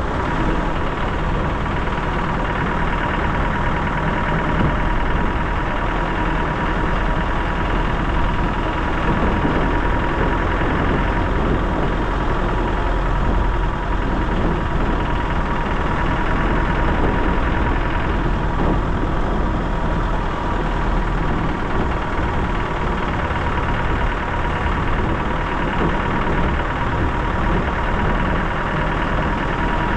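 Dacia Duster 4x4's engine running steadily, with a continuous rumble and a thin high whine through it.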